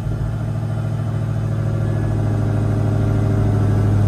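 Dodge Hellcat's supercharged 6.2-litre HEMI V8 idling steadily, heard from inside the cabin, growing gradually louder.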